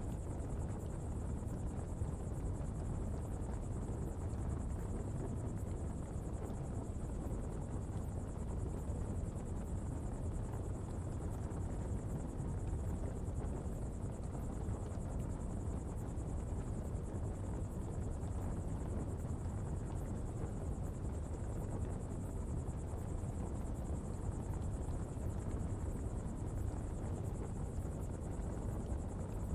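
Coal-fuelled pottery fire burning with a steady low rumble, with a thin, even high-pitched buzz of insects over it.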